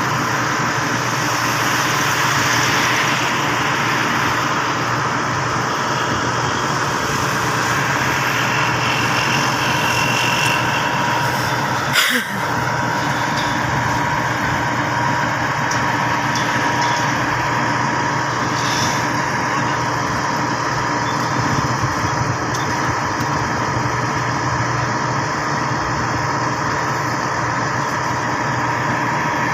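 Schwing 42 m truck-mounted concrete pump running steadily, its engine and hydraulics giving a continuous mechanical drone with a steady whine, broken by one sharp knock about twelve seconds in.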